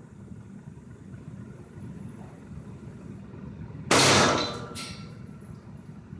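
A single shot from a Rossi M88 .38 Special snub-nosed revolver, a sharp crack about four seconds in that dies away over about half a second, followed by a fainter sharp click.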